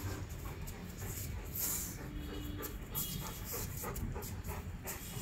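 Rottweiler panting in quick breaths, about two a second.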